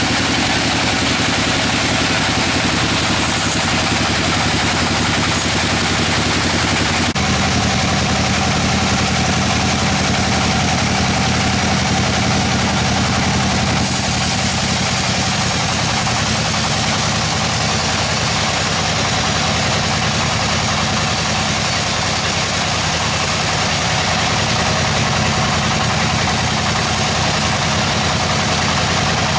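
Sawmill machinery running steadily, a loud mechanical hum with engine-like tones. The sound shifts abruptly about seven seconds in, and a high hiss joins it around fourteen seconds.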